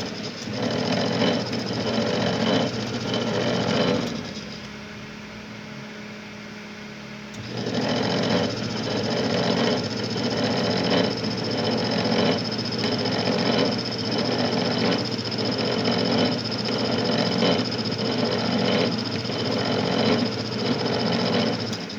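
Homemade coil-winding machine running with a rumbling hum that pulses about one and a half times a second, a strange noise the builder is not happy with. About four seconds in it stops, leaving only a quieter steady hum, and it starts running again about three seconds later.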